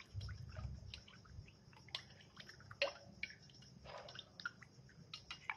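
A spoon stirring spiced tamarind water in a bowl: soft liquid sloshing with scattered light clicks of the spoon against the vessel.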